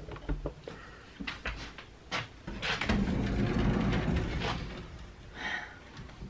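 Sliding closet door rolling along its track for about a second and a half, after a few knocks and clicks of handling.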